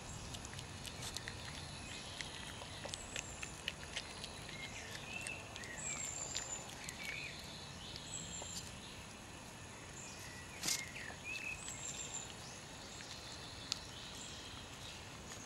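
European badger cubs snuffling and crunching peanuts close by, with small scattered clicks and one sharper click about two-thirds of the way in. Short chirping bird calls repeat in the background woodland.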